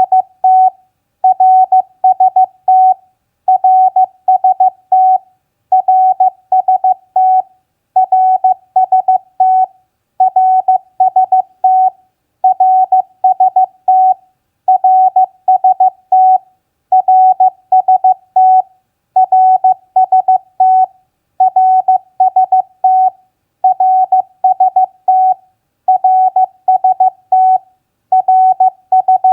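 Morse code (CW) tone keyed at 15 words per minute: a single steady mid-pitched beep sent in quick dots and dashes, in short groups broken by brief pauses about every two seconds. It is sending practice contact elements such as name, signal report and location.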